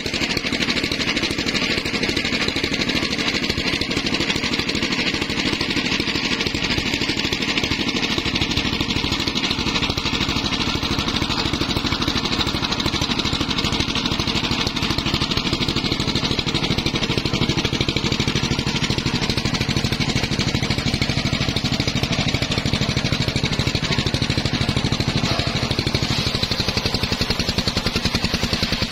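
Small engine running steadily at constant speed, driving a homemade circular-saw rig; its pitch sags a little near the end.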